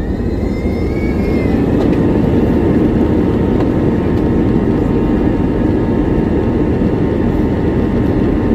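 Airbus A321-200 airliner heard from inside the cabin: a heavy, steady rumble of jet engines and airframe that swells over the first two seconds and then holds, with a faint rising whine early on.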